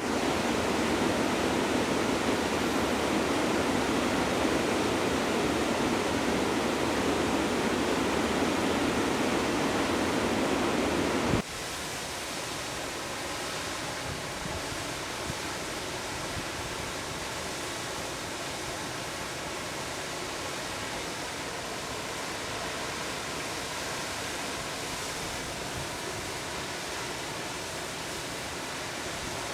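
Steady rush of flowing river water. About eleven seconds in it cuts abruptly to a quieter, fainter rush.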